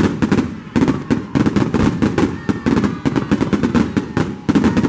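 Fireworks display: aerial shells bursting in rapid volleys, several loud bangs a second.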